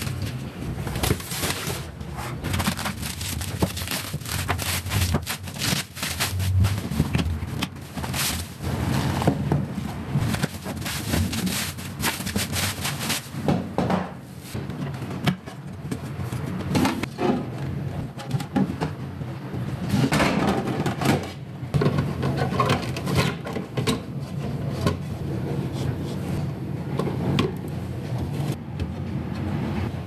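Unpacking and handling of clear plastic storage containers: bubble wrap and cardboard rustling and crinkling, with many short clicks and knocks of the plastic tubs and lids being opened, fitted and set down on a wooden countertop.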